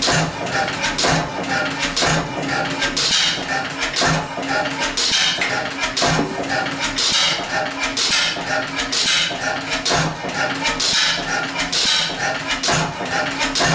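1911 Deutz E3 stationary gas engine running, with a regular beat about once a second and constant metallic clattering between the beats.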